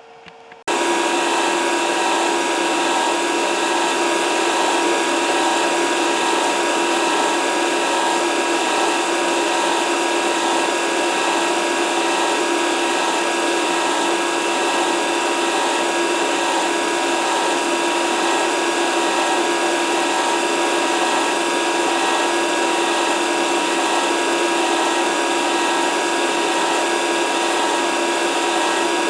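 A high-speed grinder motor running steadily, a constant whine over even mechanical noise, cutting in abruptly under a second in.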